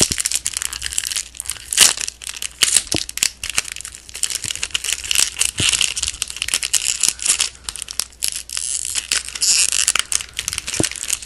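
Plastic trading card pack wrapper being crinkled and torn open by hand: a dense, irregular run of crackles and crinkles.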